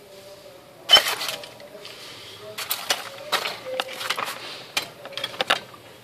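Small metal tools being handled on a workbench: one loud sharp clack about a second in, then a quick run of clicks and clinks as the soldering iron and tools are moved.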